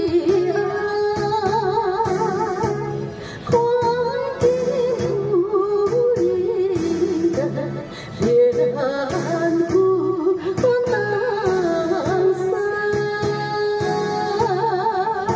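A woman singing a slow ballad into a handheld microphone over instrumental backing music, holding long notes with vibrato and pausing briefly between phrases about three and eight seconds in.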